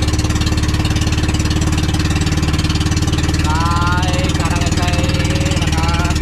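Engine of a motorized outrigger boat (bangka) running steadily under way, a fast, even putter.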